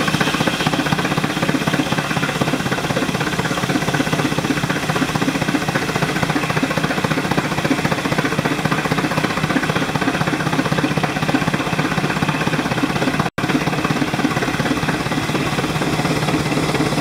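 Large circular sawmill blade cutting lengthwise through a log, over the fast, steady pulsing of the engine that drives the mill. The sound drops out for an instant about thirteen seconds in, then carries on unchanged.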